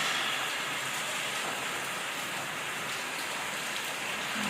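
Heavy rain pouring down in a storm: a dense, even hiss that holds steady throughout.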